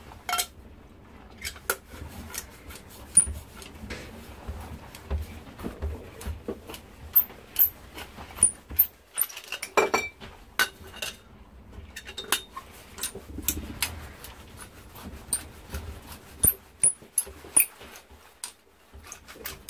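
A small hand pipe cutter being turned around copper pipe to cut it to length. It gives a string of irregular metallic clicks and clinks as the cutter and pipe are worked and knocked on the bench.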